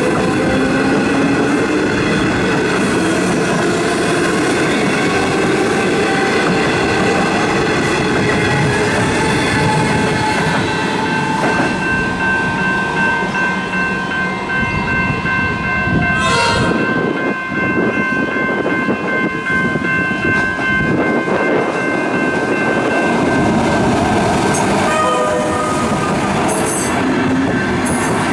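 Comeng electric suburban trains at a level crossing. One train pulls away with a slowly rising motor whine over the rumble of its wheels. Near the end another train passes close, with a short horn blast and a brief high wheel squeal.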